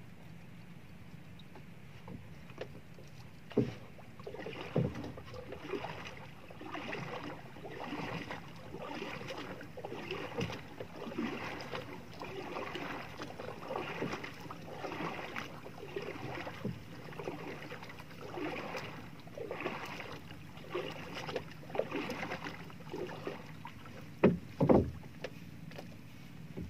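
Small waves lapping and slapping against the wooden hull of a small outrigger boat, a soft splash roughly once a second, with a few sharper knocks, two of them close together near the end.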